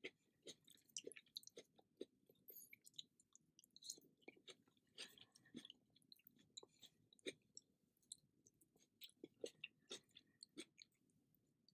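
Soft, close-up chewing: a person eating with many small, irregular wet clicks and smacks of the mouth.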